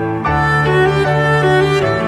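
Instrumental music on bowed strings, violin and cello, playing slow held notes; the chord changes about a quarter second in and again near the end.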